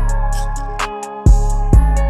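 Background electronic music with a heavy bass and kick drum, a held synth note and hi-hat ticks.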